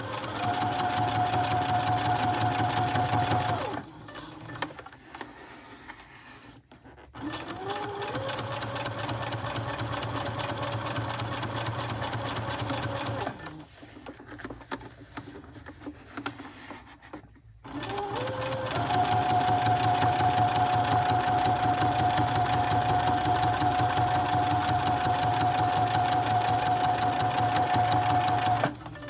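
Sewing machine topstitching along a zipper edge in three runs: a short fast run, a slower, lower run after a pause of a few seconds, then a long fast run, its whine rising in pitch as each run starts.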